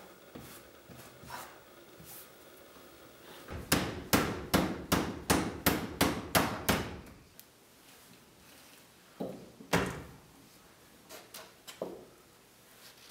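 Hammer striking a wooden cabinet: a quick run of about ten sharp blows, roughly three a second, then two single knocks and a few lighter taps near the end.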